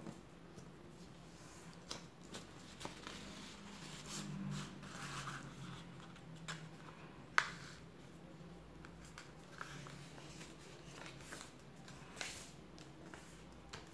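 A sheet of printer paper being folded and creased by hand on a tabletop: soft rustling and sliding with scattered crisp clicks, and one sharp snap about seven seconds in, over a faint low hum.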